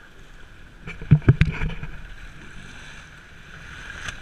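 Water splashing and slapping hard against a boat's hull, a quick cluster of four or so heavy hits about a second in, over steady wind and sea noise.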